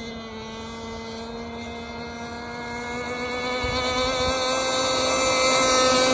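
Bonzi Sports 47 Skater RC catamaran's two-stroke gas engine running at speed on the water, a steady buzzing engine note. It grows louder over the last few seconds as the boat comes closer.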